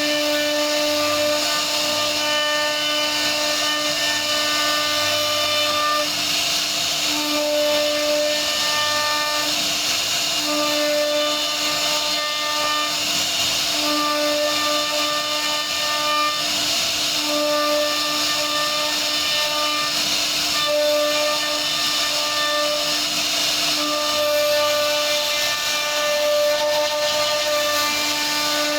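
CNC router spindle cutting wood: a steady high whine over cutting hiss, with higher tones that come and go every second or so as the machine moves.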